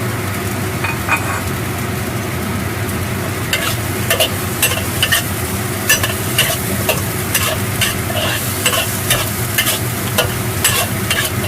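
Eggplant and minced pork sizzling in a wok over high heat while being stirred, with a spatula knocking and scraping against the wok several times a second from a few seconds in. A steady low hum runs underneath.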